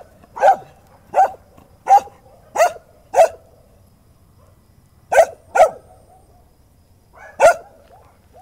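Dog barking in short, loud barks: five in a steady run, a pause of about two seconds, two quick barks, then one more near the end.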